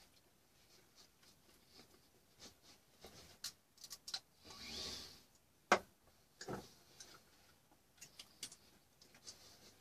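Faint scattered clicks and taps of paint supplies being handled, with a brief soft hiss about halfway through and a sharp click just after it.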